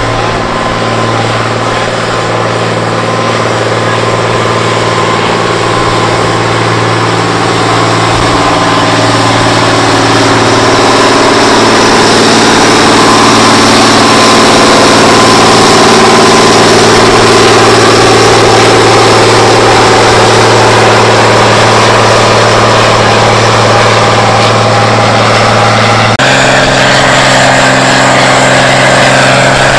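John Deere 7700 tractor's six-cylinder diesel running at a steady speed as the tractor moves slowly on the pulling track, growing louder over the first dozen seconds. Near the end the engine note changes abruptly to a slightly higher steady pitch.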